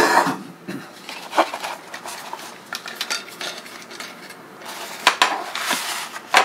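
Handling noise as an HO-scale model turntable bridge and paper instruction sheets are picked up, moved and set down on a tiled tabletop. Scattered clicks and knocks sound over paper rustling, with sharp knocks at the start and again near the end.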